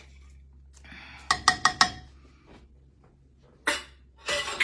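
Glass marinara jar and its metal lid clinking together, about four quick ringing clinks about a second and a half in. Near the end come two short bursts of hissing noise.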